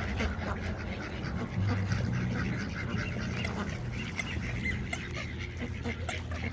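Ducks quacking in short, scattered calls as they crowd in to be fed, over a steady low rumble.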